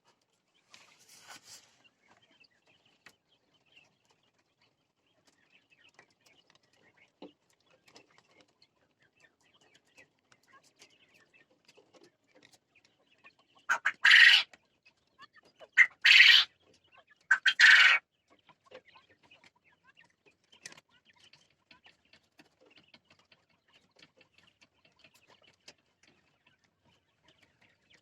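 Jumbo coturnix quail calling: three loud short calls about a second and a half apart, midway through, among faint scattered clicks and rustling.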